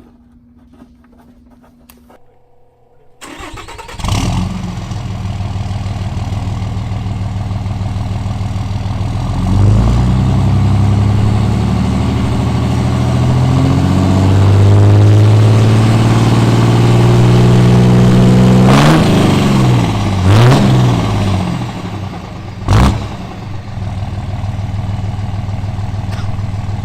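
Cummins 5.9 turbo-diesel pickup heard from inside the cab, fitted with an S&B cold air intake, coming in after a few quiet seconds and pulling up through the gears of a manual gearbox: the engine note climbs, drops and climbs back twice with gear changes, then settles to a steady run. Near the end there is one sharp knock.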